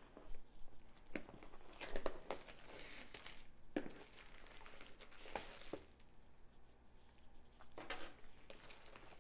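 Plastic shrink wrap crinkling as it is cut with scissors and pulled off a cardboard box, in irregular bursts with a few sharp crackles.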